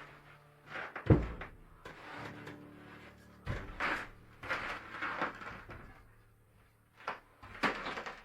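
A series of separate knocks and thumps, the loudest about a second in.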